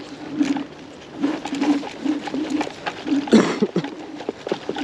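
Dual-motor electric scooter climbing a rough off-road hill: a low motor hum comes and goes in short spurts while the tyres and frame knock and rattle over the ground, with one heavier jolt a little past the middle.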